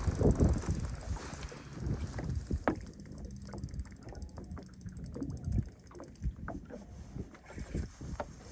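Boat sounds on open water: wind gusting on the microphone, loudest in the first second or so, then many small scattered knocks and clicks.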